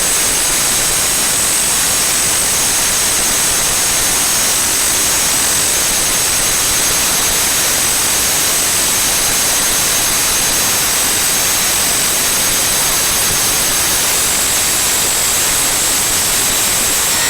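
Loud, steady static-like hiss with no rhythm or pitch, brightest in the treble, that cuts off abruptly at the very end.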